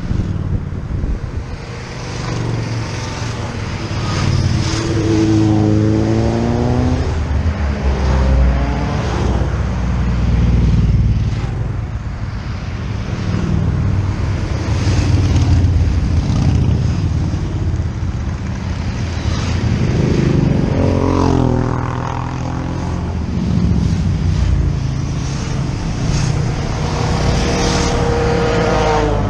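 Motorcycle engines running on the move, a steady low rumble with the revs rising and falling several times as the bike accelerates and shifts.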